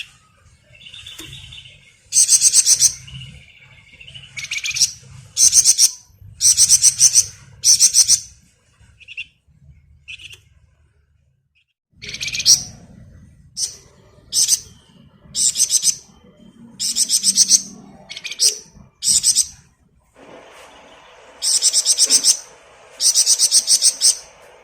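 Flamboyan songbird singing in its 'ngebren' style: a string of loud, rapid, rattling high trills, each under a second long, repeated with short gaps, with softer chirps in between.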